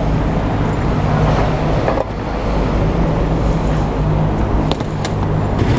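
Steady low engine hum under a continuous wash of traffic noise, with a few light clicks about two seconds in and again near the end.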